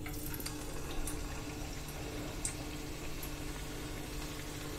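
A disc of thekua dough slides into hot oil in a kadai and starts sizzling: a steady frying hiss with a few sharp crackling pops, over a steady low hum.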